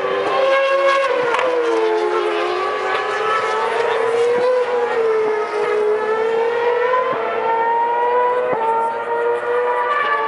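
Formula One car engines at high revs, the pitch falling and rising as the cars lift and accelerate through the corners, with sudden upshift steps near the end.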